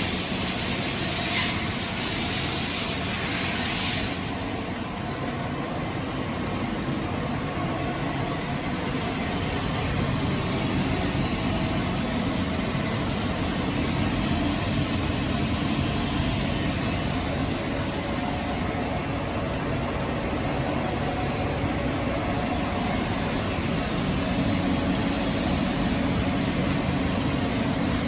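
STAMA MC 530 vertical machining centre running under power: a steady mechanical hum of motors with several held tones, and a hiss of air in the first few seconds.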